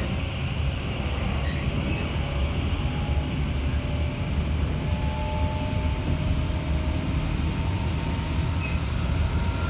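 Inside a JR 211 series electric train running along the line: a steady rumble of wheels and running gear, with faint steady whining tones above it.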